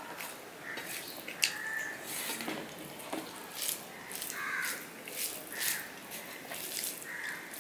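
Fingers mixing rice with mustard hilsa curry on a stainless-steel plate: soft wet squishing and small clicks. Several short calls at about the same pitch sound over it.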